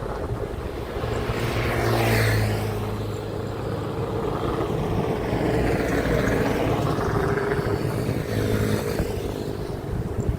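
Heavy trucks driving past on a highway, engine and tyre noise swelling and fading as they pass. The first vehicle passes about two seconds in; more pass between about six and nine seconds in, over steady traffic noise.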